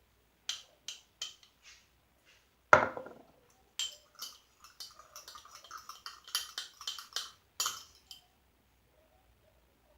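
A utensil clinking and knocking against a mixing bowl while a slime mixture is stirred. There is a louder knock about three seconds in, then a busy stretch of scraping and clicking that stops about two seconds before the end.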